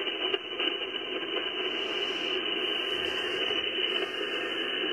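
Amateur radio transceiver's receiver hiss and band static from its speaker, a steady noise cut off sharply above the voice range. The channel is open with no station answering the operator's QRZ call.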